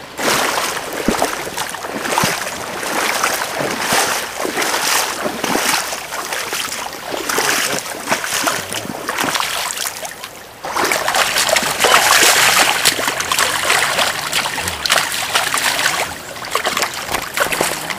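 Splashing in shallow river water over the rush of the current as a hooked rainbow trout is fought and landed. It grows louder from about ten and a half seconds in.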